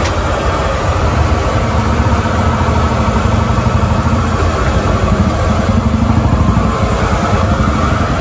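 A motor vehicle's engine idling close by, a steady low rumble.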